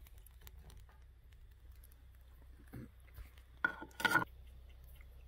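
Metal tongs clinking against a ceramic plate and mussel shells: a few light clicks, then two sharper clinks close together a little before the end.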